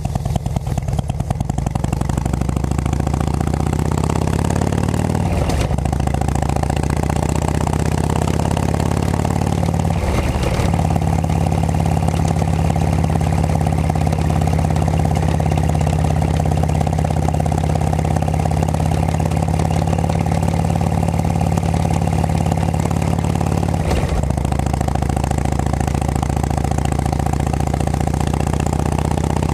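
2006 Harley-Davidson Road King Classic's Twin Cam 88 V-twin running through Cycle Shack aftermarket pipes under way. It rises in pitch as it accelerates over the first few seconds, and the engine note drops briefly three times, at gear shifts, about five, ten and twenty-four seconds in.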